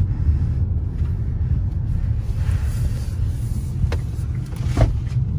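Car cabin noise while driving: a steady low rumble of engine and tyres on the road, heard from inside the car. Two short clicks come about four and five seconds in.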